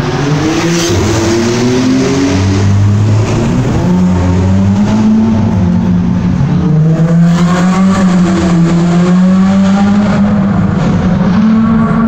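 Several car engines revving and accelerating, their pitch rising and falling again and again, loud inside a road tunnel.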